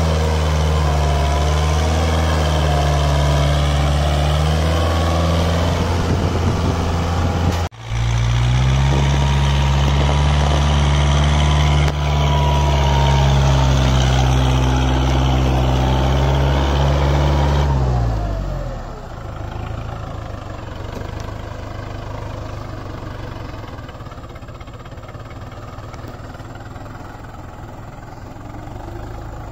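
Kubota MU4501 tractor's four-cylinder diesel engine running hard under load while pulling a harrow, with a brief dropout about a quarter of the way in. About two-thirds through, the engine speed falls and it settles to a quieter, slow run.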